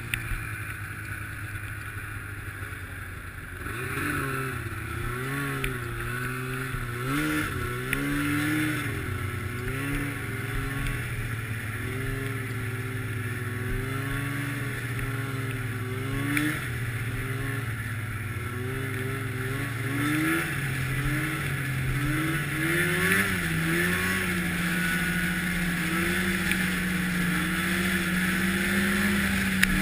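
Snowmobile engine heard from the sled it is mounted on, its pitch rising and falling with the throttle and settling higher about twenty seconds in, over a steady hiss.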